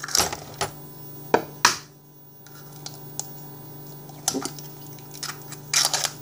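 Brown eggs being cracked by hand and broken open over a glass bowl: several sharp cracks of shell spread through, a quick cluster near the end, with the wet sound of the contents dropping in. A steady low hum runs underneath.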